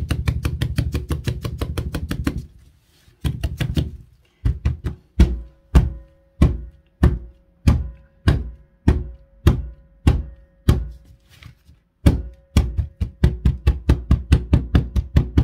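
A large silicone mould full of freshly poured resin being banged against a tabletop to bring up air bubbles. It starts as a fast run of knocks, about eight a second, slows to single knocks a little under two a second, then goes back to the fast run near the end.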